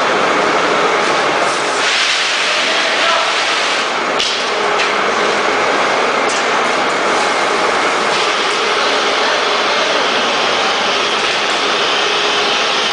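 Automatic powder bagging machine running: a loud, steady mechanical clatter and hiss from the bag-handling and filling line, with a sharp click about four seconds in.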